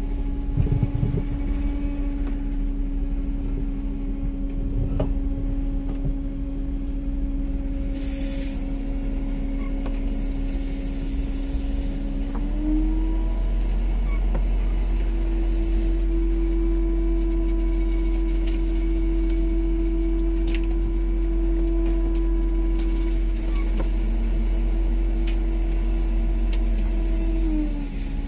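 A fishing boat's engine running steadily with a strong hum. About twelve seconds in its pitch rises and holds higher, then drops back near the end.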